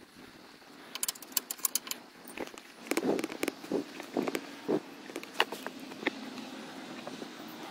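Hand tools being worked on engine bolts: a quick run of sharp metallic clicks about a second in, then scattered knocks and clinks of metal.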